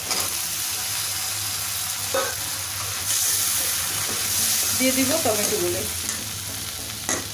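Cut potato sticks tipped into hot oil and spice paste in a wok, sizzling and frying, the sizzle growing louder about three seconds in. A metal spatula stirs them and knocks sharply against the pan near the end.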